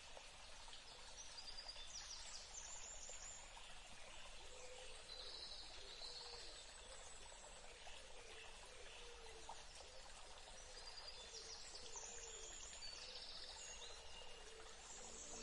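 Faint European robin song: short phrases of varied high whistles and trills, a few seconds apart, over a steady background hiss.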